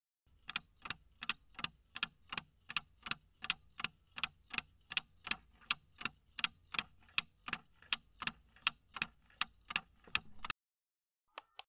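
Clock-ticking countdown-timer sound effect: evenly spaced ticks, about three a second, that stop abruptly about a second before the end. Two quick clicks follow right after.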